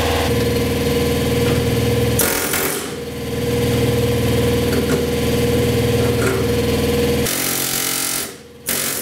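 Pneumatic air hammer with a chisel bit chattering steadily against the windshield frame hinge of an early Ford Bronco, busting loose spot welds that were partly drilled out first. It eases off briefly about two seconds in and stops about seven seconds in, with a short burst near the end.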